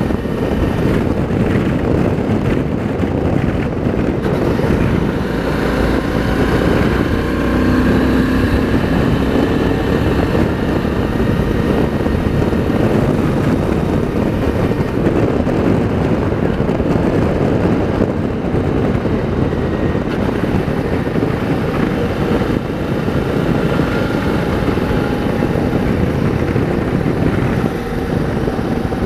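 Suzuki V-Strom 650 motorcycle under way, its 645 cc V-twin engine running under steady wind rush on the rider's microphone.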